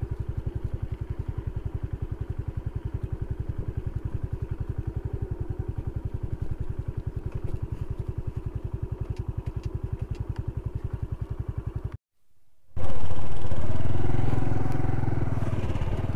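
Honda Pop 110 single-cylinder motorcycle engine idling with an even, rapid putter. After a brief cut about twelve seconds in, it is louder and rising in pitch as the bike pulls away and speeds up.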